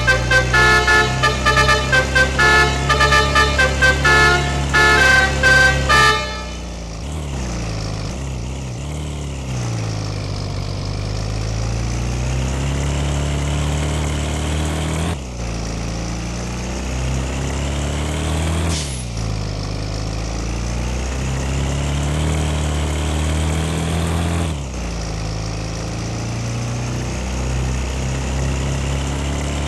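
Multi-tone telolet horn playing a quick tune of short toots, cutting off about six seconds in. Then a Yamaha R25's parallel-twin engine is revved, its pitch rising and falling in slow swells with a few brief breaks.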